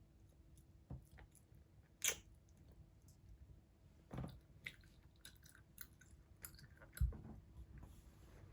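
A toddler chewing gummy candies: quiet mouth sounds with scattered small clicks, and sharper clicks about two seconds in and again about seven seconds in.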